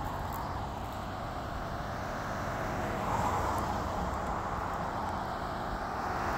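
Busy road traffic: cars passing in a steady wash of noise, swelling a little about three seconds in.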